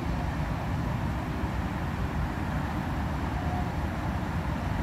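Steady rushing of white water churning below a weir, with a heavy low rumble.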